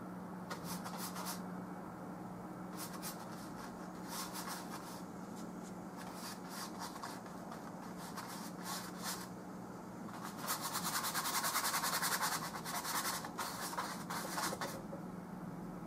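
A flat brush loaded with oil paint stroked across canvas in a series of short scratchy sweeps. About ten seconds in it scrubs back and forth rapidly for a couple of seconds, the loudest part. A faint steady hum runs underneath.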